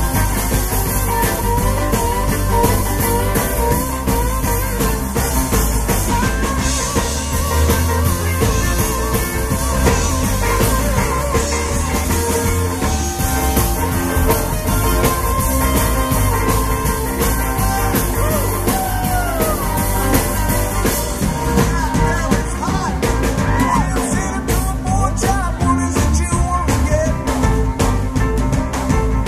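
A live rock band playing, with electric guitars over a full drum kit, and pitch bends in the lead lines.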